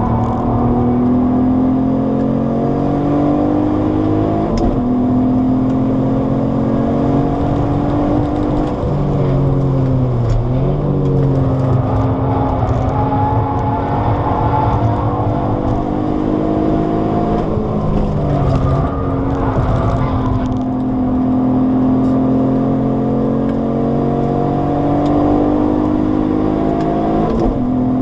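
Alfa Romeo 156's Busso V6 engine heard from inside the cabin, pulling up through the revs on track. Its pitch climbs, then drops back briefly several times as the gears change, and falls lower for a while around the middle before climbing again.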